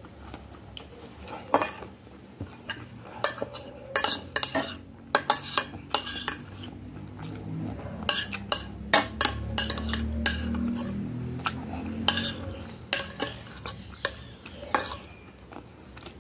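Metal spoon scraping and clinking against a glass plate, in many quick taps, as it scoops up the last of the broth.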